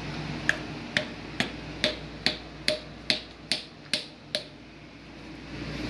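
About nine sharp clicks, evenly spaced at a little more than two a second, stopping about four and a half seconds in.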